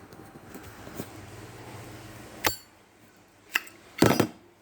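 Metal clicks and clinks of a Zippo lighter's steel case and insert being handled as the insert is pulled out: a sharp click about two and a half seconds in, another a second later, and a longer, brighter clinking near the end.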